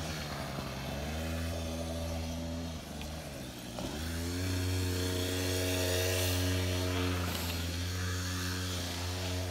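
Small dirt bike engine running while ridden, its pitch dipping as the throttle eases and rising again about a second in and once more around three to four seconds in.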